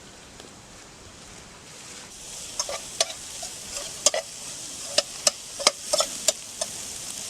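Chopped onions and green chillies sizzling in butter in a pan, the sizzle growing about two seconds in. From then on a stirring utensil knocks and clinks against the pan a dozen or so times.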